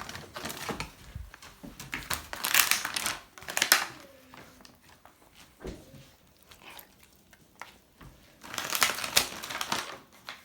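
Plastic packet of ham crinkling and rustling as it is handled, in two bursts about two and a half seconds in and near nine seconds, with small clicks and rustles between.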